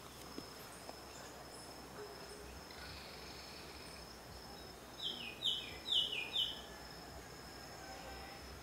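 Faint outdoor ambience: a steady high insect buzz, with a bird calling a quick run of four short downward-sliding notes about halfway through.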